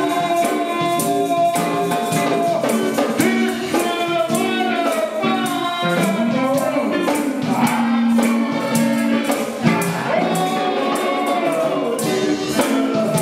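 Live gospel music: a choir singing with a tambourine shaking steadily through it.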